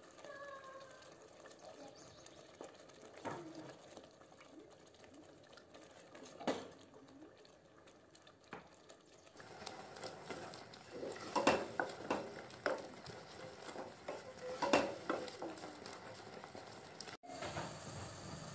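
Wooden spoon stirring eggs into a thick simmering onion sauce in a stainless steel pot, scraping and knocking against the pot's sides and bottom, with a few sharper knocks in the second half.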